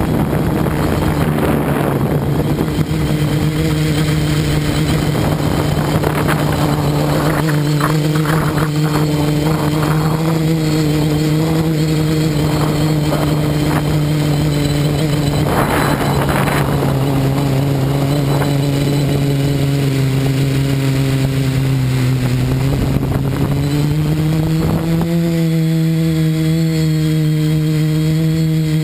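Multirotor drone's electric motors and propellers humming steadily, as heard from its onboard camera. The pitch dips a little around 20 to 22 seconds in and rises again about 25 seconds in as the throttle changes.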